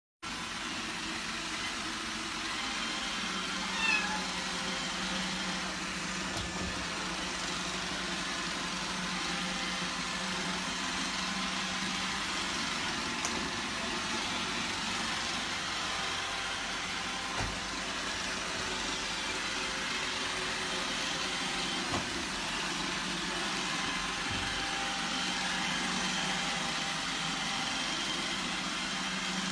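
Robot vacuum cleaner running steadily, its motor humming and brushes whirring, with a few faint knocks. A kitten meows briefly about four seconds in.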